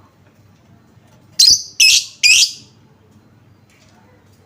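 Lovebird giving three short, shrill chirps about half a second apart, a second and a half in: a bait call ('pancingan') used to set other lovebirds calling.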